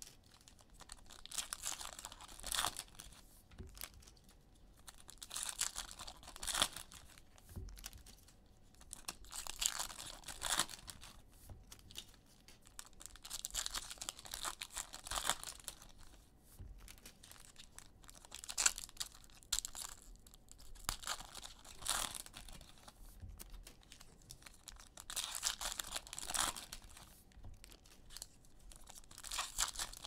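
Basketball card pack wrappers being torn open and crinkled, in irregular bursts every second or few.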